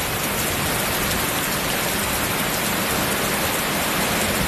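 Heavy rain pouring down and floodwater rushing through a flooded street in a flash flood: a steady, loud, even hiss.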